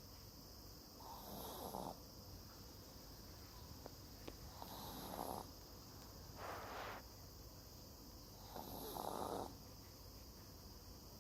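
An 11-year-old dog snoring in its sleep: four soft snoring breaths a couple of seconds apart.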